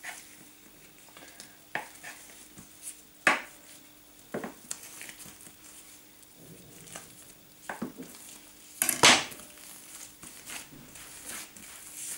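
Kitchen knife cutting through a large ball of soft brioche dough on a countertop, with scattered short knocks and scrapes of the blade and dough against the counter; the loudest knock comes about nine seconds in. A faint steady hum runs underneath.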